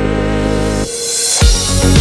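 Electronic background music: a sustained synth chord that breaks a little under halfway into a rising swell of hiss, then a beat with deep kick-drum thumps about twice a second.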